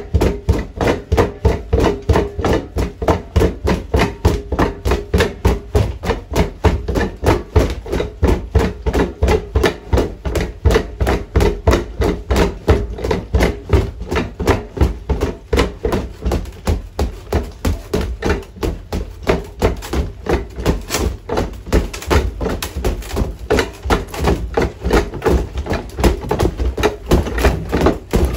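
Boxing gloves striking a heavy punching bag in a fast, steady flurry of blows, several a second.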